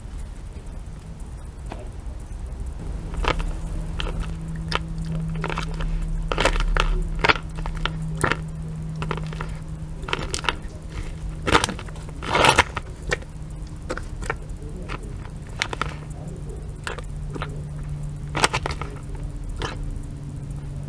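Fox cub chewing and crunching food from a plastic tub close by: irregular sharp crunches and clicks, with a longer run of crunching about halfway through, over a steady low hum.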